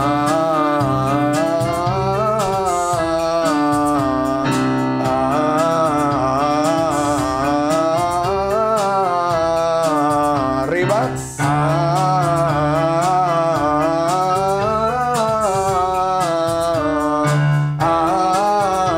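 A man singing a vocal scale exercise, quick runs of notes up and down, over chords held on an electric keyboard. The chord changes a few times and each run starts again on it.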